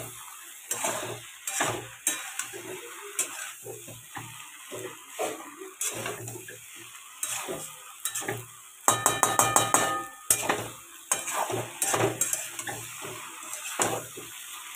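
A spatula scraping and knocking against a metal kadai as soya chunks and potatoes are stir-fried in masala, in uneven strokes about one or two a second over a light sizzle. About nine seconds in comes a quick run of rapid scrapes.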